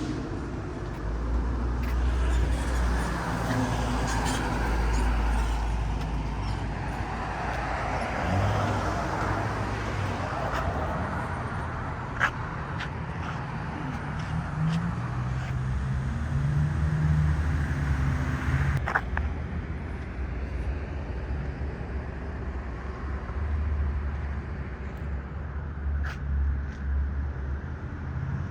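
City street traffic: cars driving past over a steady low engine rumble, with a couple of sharp clicks.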